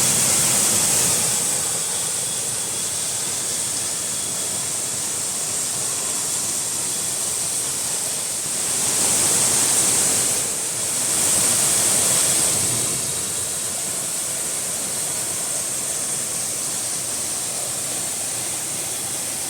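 Waterfall rushing steadily, a dense hiss of falling water that swells louder a few times, about halfway through.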